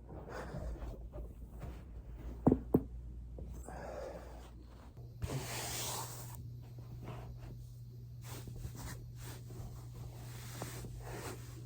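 Body rubbing and rustling on a foam roller, with two sharp joint cracks about a quarter second apart a couple of seconds in.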